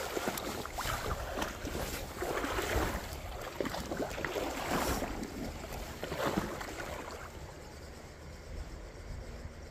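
River water sloshing and splashing in irregular bursts, with wind on the microphone. It dies down to a quieter, steady rush about seven seconds in.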